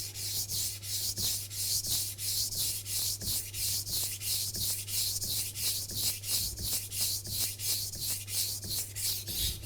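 Japanese kitchen knife blade stroked back and forth on a wet ceramic whetstone: an even, rhythmic scraping of about three strokes a second. Each stroke sounds the same because the blade is held at a steady 15-degree angle.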